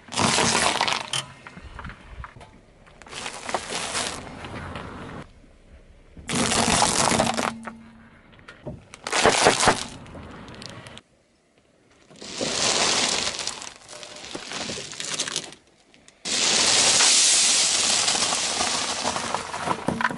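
A car tyre rolling over and crushing a series of foods and snacks, heard as several separate bursts of crunching and cracking. The bursts start and stop abruptly, and the longest and loudest comes near the end.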